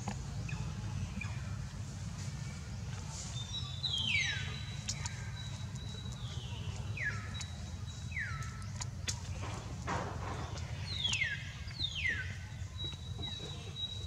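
Baby monkey giving a series of high squeaky calls, each sliding sharply down in pitch, over a steady low hum.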